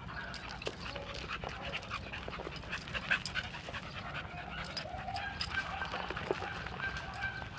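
Two pit bull–type dogs panting as they play, with scattered clicks and scuffs throughout and a thin, high whine in the second half.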